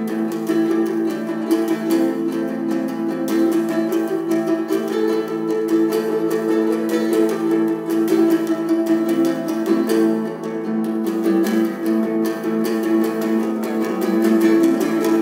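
Small nylon-string guitar fingerpicked in a mellow, continuous pattern, the plucked notes ringing over one another.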